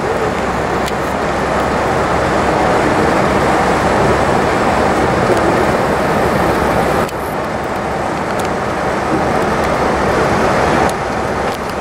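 Steady road and wind noise of a moving vehicle, heard from inside it. The level drops abruptly about seven seconds in and again shortly before the end.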